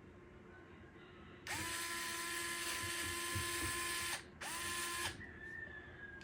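Fanttik cordless electric screwdriver running in two spells, backing a Phillips screw out of a fan grille: a longer spell of about two and a half seconds, then a short one after a brief stop. Each time the motor spins up to a steady whine.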